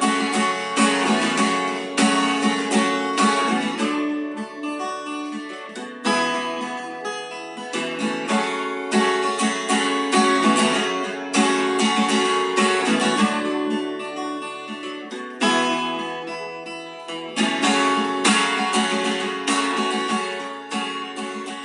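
Acoustic guitar strummed in a steady rhythm, playing the instrumental close of the song after the last chorus, with chord strokes several times a second.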